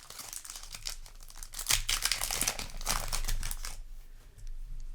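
Foil Yu-Gi-Oh! booster pack wrapper being crinkled and torn open by hand, a dense crackling that dies down after about four seconds.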